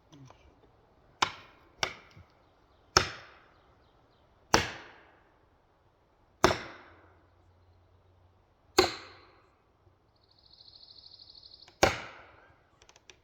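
Seven sharp blows a second or two apart, each with a short ringing decay, typical of a felling wedge being driven into the back cut of a white pine. A brief buzzy trill sounds between the last two blows.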